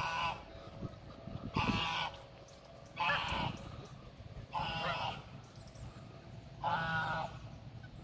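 A goose honking repeatedly, five short calls about one every second and a half.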